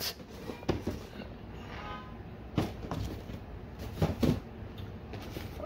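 Cardboard toy boxes being handled and lifted off a table, with a few separate dull knocks.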